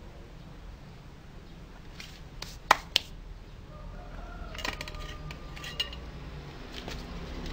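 Wooden parts being handled and set in place on a wooden workbench: two sharp clacks about three seconds in, then a scatter of lighter clicks and knocks.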